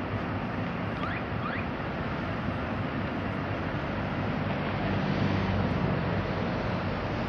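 PKP SM31 diesel shunting locomotive running with a steady low engine hum, growing a little louder as it passes beneath about five seconds in. Two brief faint rising chirps sound about a second in.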